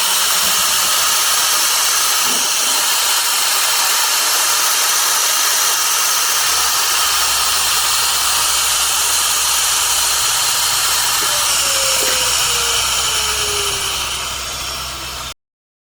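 Spindle of a four-spindle quick-change CNC router running at high speed and machining: a steady high-pitched whine over cutting noise. A lower hum joins about halfway, and the sound cuts off abruptly near the end.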